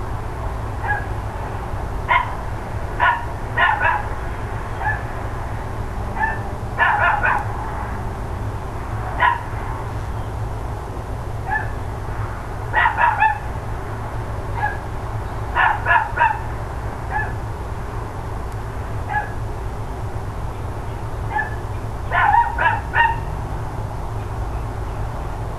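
Dogs barking repeatedly: short barks come in bursts of two to four every few seconds, with fainter single barks in between.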